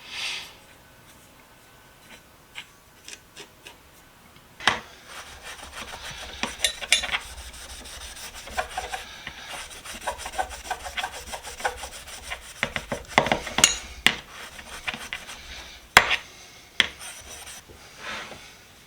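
Metal hand tool being rubbed and scrubbed clean by hand. A few light clicks come first, then about five seconds in a long stretch of irregular scratchy strokes with sharp clicks begins. A sharp knock comes near the end.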